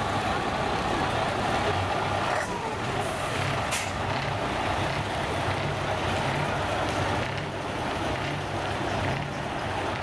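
Scania 141's V8 diesel engine running steadily as the tractor unit rolls slowly past, with a brief hiss of air about three to four seconds in.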